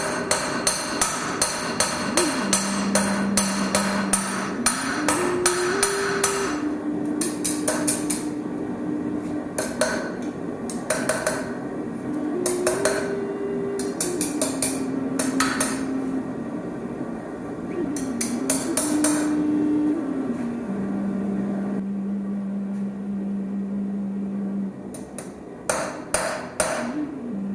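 Hammer blows on Damascus steel being forged into a knife blade: a quick even run of strikes, about three a second, for the first six seconds, then short clusters of fast blows separated by pauses.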